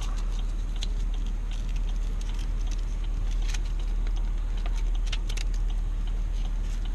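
Small clicks and rustles of a battery pack and its strap being handled and fastened around a rifle stock, over a steady low rumble.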